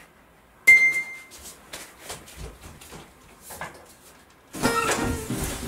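A sharp knock about half a second in, then soft rustling of bedding and light thumps as a person gets up off a bed. Music comes in near the end.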